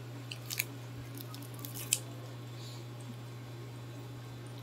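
Kitchen scissors snipping through crispy deep-fried pork lung, a few short crunchy snips with the loudest about two seconds in, over a steady low hum.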